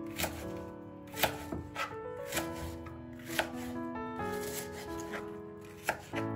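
Kitchen knife chopping an onion on a plastic cutting board: a string of sharp, irregularly spaced strikes, over background music.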